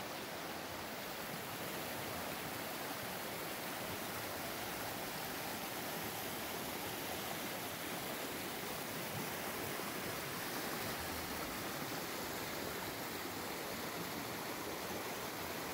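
Shallow, fast mountain stream rushing over rocks and boulders: a steady, even rush of water.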